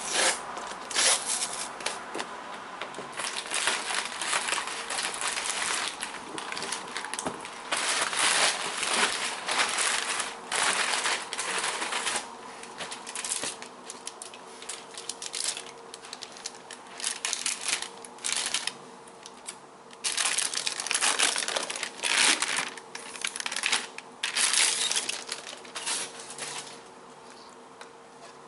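Plastic packaging crinkling and rustling in irregular bursts as it is handled, typical of unwrapping a replacement laptop screen.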